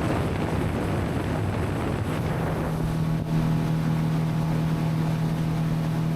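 Motorboat running on the water with wind noise on the microphone; about two seconds in, a steady engine hum comes up and holds.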